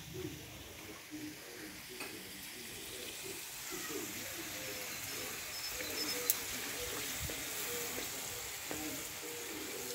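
Skewered meat sizzling on a grill over an open fire, a steady hiss that grows louder a few seconds in. There is one sharp click about six seconds in.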